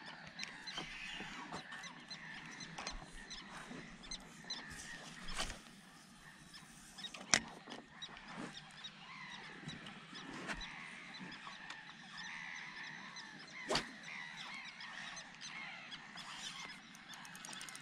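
Faint scattered animal calls from around the pond, short and repeated, with two sharp clicks about seven and fourteen seconds in.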